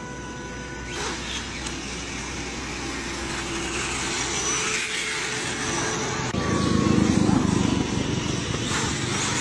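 A car driving past on the road, louder about six to eight seconds in.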